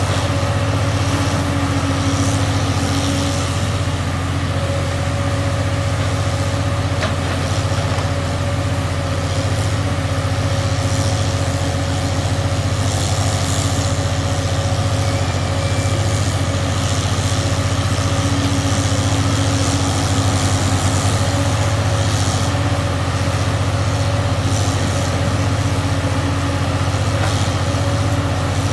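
Hood 24000 log loader and slasher at work: its diesel engine runs steadily under hydraulic load, with a constant whine over the engine and some passing hiss as logs are handled.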